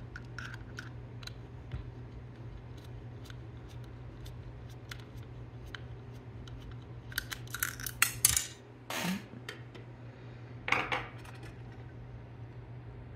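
Light metal clicks and clinks of a screwdriver turning out small screws from a robot arm's metal base plate, with louder bunches of clinks about eight, nine and eleven seconds in.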